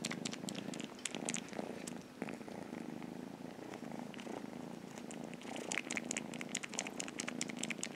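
Kitten purring steadily while suckling on a cloth drawstring, with loud smacking of its mouth as if drinking milk. The smacking clicks grow busier in the last couple of seconds.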